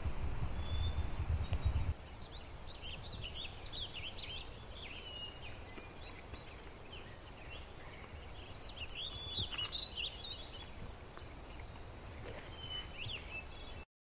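Woodland songbirds singing in quick bursts of high chirps over a faint outdoor hiss. A low rumble runs for the first two seconds, then stops abruptly, and the sound cuts out just before the end.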